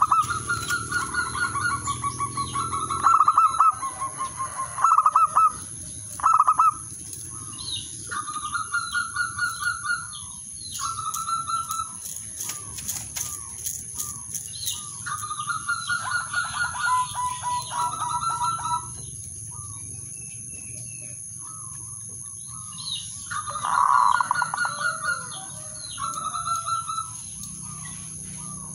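Male zebra dove cooing in bouts of rapid, stuttering trilled coos, several phrases in a row with pauses between bouts. Around halfway through there is a brief flutter of wings as the bird leaves its perch.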